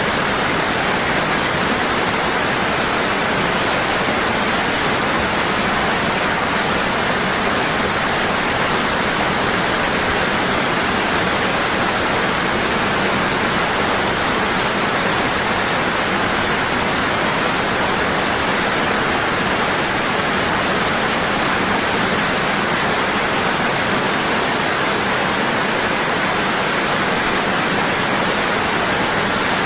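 Waterfall falling hard and constantly: a dense, steady rush of water.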